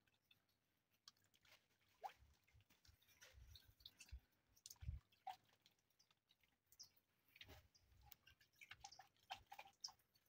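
Near silence, with scattered faint wet squishing and dripping sounds from hands scrubbing a wet face.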